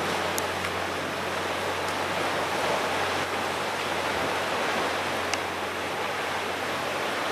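Steady rushing outdoor noise of sea and wind, with a faint steady low hum underneath and a couple of faint ticks.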